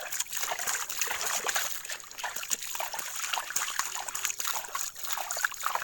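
Water splashing and trickling in irregular scoops as water is bailed out of a leaking wooden boat with a sandal.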